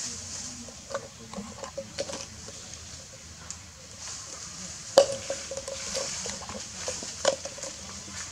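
Hollow plastic jar knocked and scraped about on a concrete floor by monkeys. Several sharp knocks, each with a short hollow ring; the loudest comes about five seconds in and another hard one near seven seconds.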